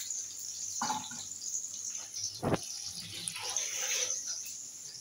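Sliced onions frying in hot oil in an iron kadhai, a steady sizzle, with a single knock about two and a half seconds in.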